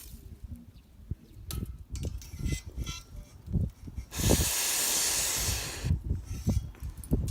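Meat sizzling on a hot skillet, with a loud burst of hissing about four seconds in that lasts around two seconds, among scattered low knocks.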